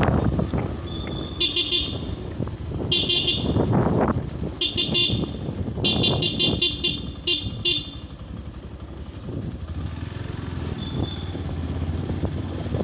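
A horn sounded in five quick bursts of rapid high-pitched pulses, the longest burst about six seconds in, over the steady rumble and wind of a moving motorbike.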